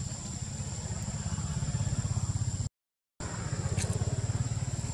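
Low rumble of a small engine running, with a fast, even pulse and a thin, steady high whine above it. The sound cuts out completely for about half a second in the middle.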